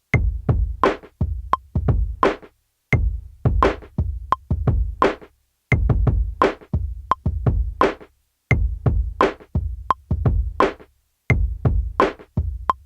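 Hip-hop drum beat played back from a Native Instruments Maschine: sharp drum hits over a deep bass, in a short loop that cuts to silence briefly about every three seconds before starting again.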